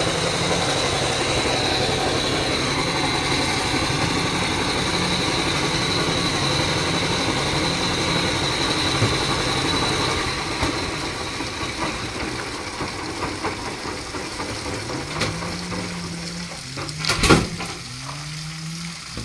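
Steady hissing rush of water splashing and draining, with a low engine hum underneath; it eases off after about ten seconds, and a sharp knock sounds near the end.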